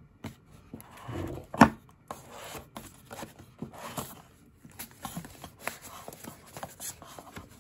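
Stiff black cardboard inserts of a headphone box being handled: card rubbing and sliding as a compartment is lifted out and opened, with scattered light taps and one sharp knock about one and a half seconds in.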